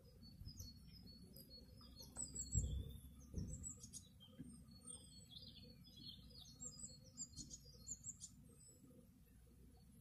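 Small birds chirping and twittering in quick high notes, busiest through the middle of the stretch, over a low steady hum of honeybees flying at the hive entrance. A couple of low thumps come about two and a half and three and a half seconds in.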